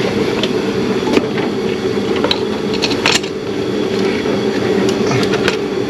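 A steady mechanical drone of shop equipment runs throughout. A few light clicks and clacks come from spark plug wires being handled and fitted, about a second in, at two seconds and at three seconds.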